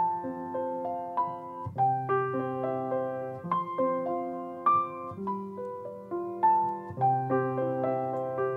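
Solo piano playing a slow, gentle piece: flowing chords over sustained bass notes, with the bass changing about every two seconds.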